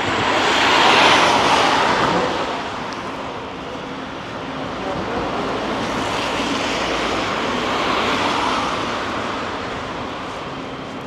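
City traffic passing on a wet street: tyre hiss swells as a vehicle goes by about a second in and again around eight seconds, over a steady background of street noise.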